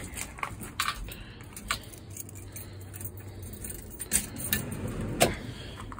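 Keys jangling, with a handful of separate light clicks and knocks, as a vehicle key is handled at the ignition.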